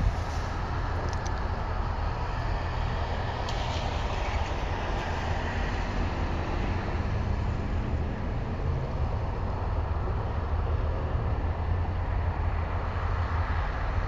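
Diesel freight locomotives running with a steady low rumble as the train moves off.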